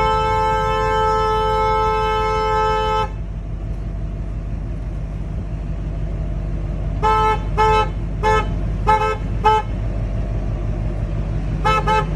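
Diesel dually pickup's two-note horn: one long blast of about three seconds, then a rapid string of five short toots about seven seconds in and more short toots near the end, over the steady low rumble of the engine.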